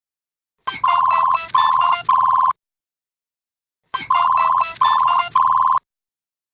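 A cartoon wristwatch's electronic ringtone sound effect, played twice. Each ring is a quick opening sweep followed by three short, trilling beeps.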